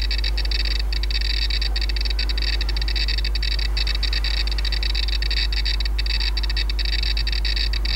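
Radiation meter's audible count indicator clicking so fast that the clicks run together into a near-continuous high-pitched chirring with brief gaps. This is the sign of a high count rate from the thorium-232 in an old thoriated lens. A steady low mains hum runs underneath.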